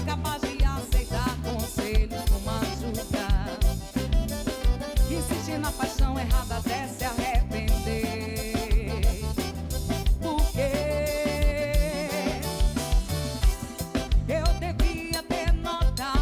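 Live band music with a steady drum beat and melodic instruments.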